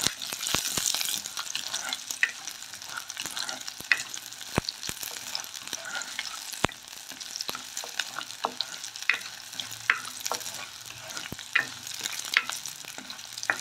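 Shallots and green chillies sizzling in hot oil in a clay pot, with irregular sharp pops and crackles. A wooden spoon stirs through them, scraping against the clay.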